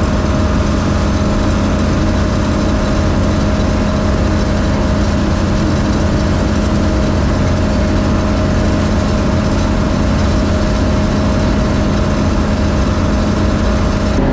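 John Deere 3300 combine running steadily: an even, loud engine and machinery drone with a constant whine over it.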